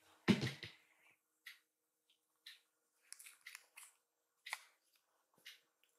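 A soft thump and rustle just after the start, then light scratchy rustling of kittens moving and pawing on a cloth-covered sofa among their toys, with short faint ticks about once a second.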